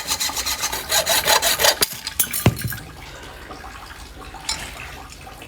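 Rapid rasping strokes of a blade worked back and forth, several a second, ending with a couple of sharp knocks about two and a half seconds in; a faint hiss follows.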